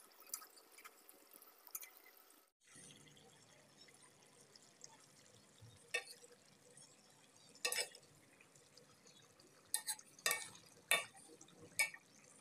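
Chicken gizzard-and-liver curry simmering in a pot: a soft steady hiss with scattered sharp pops and clicks, several close together near the end.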